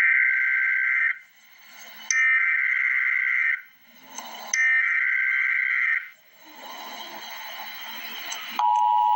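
Emergency Alert System SAME header: three bursts of a rapidly warbling two-pitch data tone, each lasting over a second, with about a second of faint hiss between them. Near the end the steady two-tone EAS attention signal starts, announcing the Tornado Watch alert.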